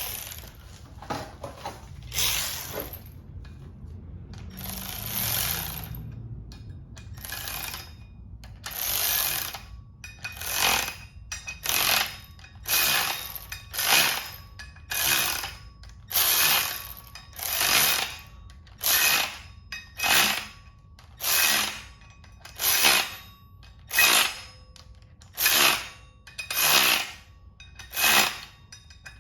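Milwaukee 3/8-inch cordless ratchet run in repeated short bursts, a few longer pulls first and then about one short burst a second, drawing bolts up slowly to press a very tight-fitting flywheel onto the crankshaft hub.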